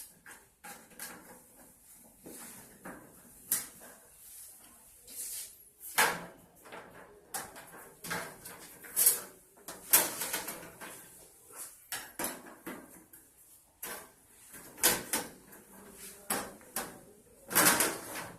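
Irregular clicks, knocks and short scrapes of a back panel being handled and fitted onto a ticker display sign's casing.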